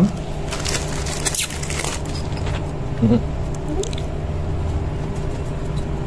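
A plastic fan and its grille being handled on a workbench: a few sharp clicks and knocks in the first couple of seconds, over a steady low hum.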